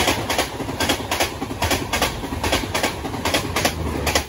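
Two passenger trains running side by side at close range: a steady rumble of wheels on rail, with sharp wheel clacks mostly in pairs, about one pair every 0.8 s. The noise drops sharply at the very end as the last coach of the train alongside, its luggage van, clears.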